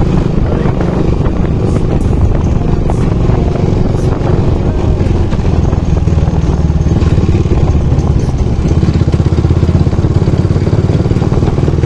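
Motorcycle engine running steadily while the bike is ridden along the road.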